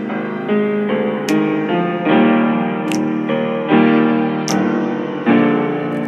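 Background music led by piano, a new chord struck every second or so and dying away, with a light high tick about every one and a half seconds.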